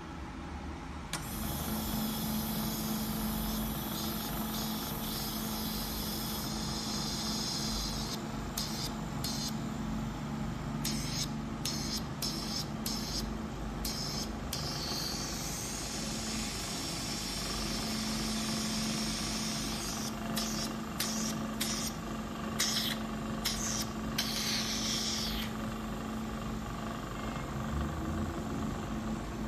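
An oxygen jet peel beauty machine switches on about a second in. Its compressor runs with a steady hum, and the glass handpiece sprays a hissing jet that comes in two long spells, cutting in and out in short bursts between them.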